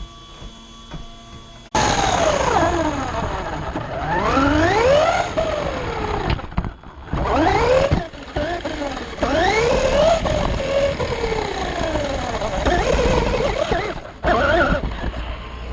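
Vandal 4WD RC buggy driven hard, heard from on board: its electric motor's whine rises and falls in pitch again and again as it speeds up and slows, over a rough running noise. It starts suddenly about two seconds in, with brief breaks at about seven and fourteen seconds.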